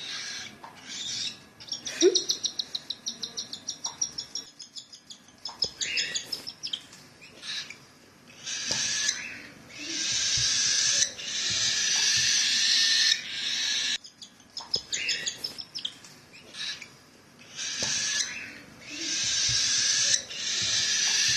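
Baby cockatiel chicks begging for food during hand-feeding. A rapid string of pulsed chirps comes about two seconds in, then long, harsh, hissing begging calls of a second or more, repeated several times.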